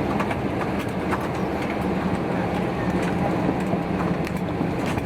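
Steady aircraft cabin noise inside an Airbus A320 on the ground after landing: a constant low hum with a rushing background, dotted with small clicks and knocks.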